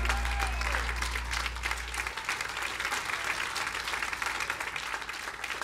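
Audience applauding a band that has just finished a song. Under the clapping, the band's final low chord rings on and stops about two seconds in.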